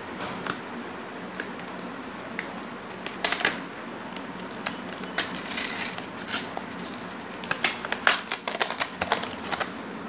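Cardboard and plastic memory-module packaging being torn open and handled by hand: scattered crinkles and sharp clicks, a burst about three seconds in and a dense run of them in the last few seconds.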